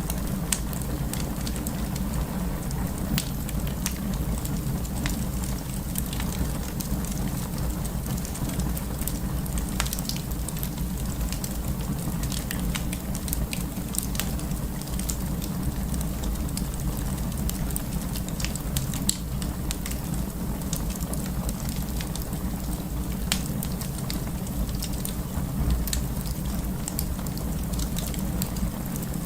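Burning wood crackling, with irregular sharp pops and snaps over a steady low rumble.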